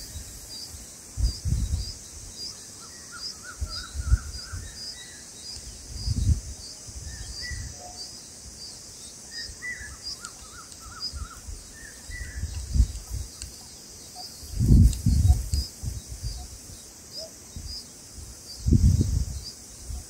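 Outdoor ambience. A high chirp repeats steadily about twice a second, and small clusters of soft bird chirps come twice. Several low rumbles of wind on the microphone are the loudest sounds, one of the biggest about three-quarters of the way through.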